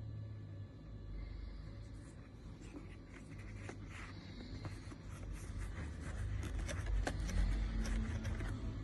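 Handling of a computer gaming mouse: an irregular run of light plastic clicks and scratchy rubbing, busiest in the second half, over a low steady hum.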